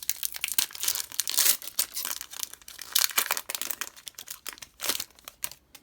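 Yu-Gi-Oh! booster pack's foil wrapper crinkling and tearing as it is opened by hand, a dense run of crackles that thins out near the end.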